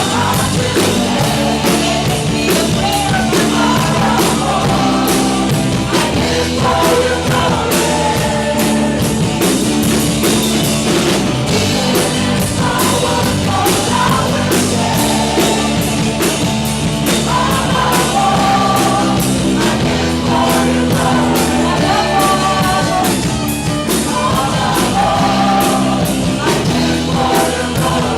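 Live church worship music: a singer leads a fast rock-style praise song over a full band with a steady drum beat and bass.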